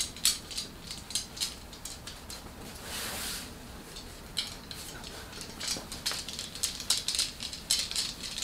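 Light, uneven clicking and clattering with cloth rustling as a Korean shaman handles a bundle of coloured ritual flags on wooden sticks, with a short swish of cloth about three seconds in.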